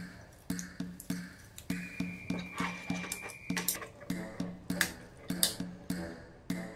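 Light background music with a steady bouncy beat and a held high note near the middle, over sharp clicks and taps of white plastic hanger parts being handled and fitted together.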